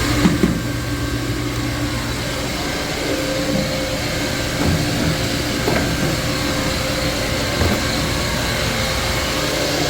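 Refrigerant recovery machine running steadily, an even mechanical hum with a few light knocks over it as the evaporator drain is undone.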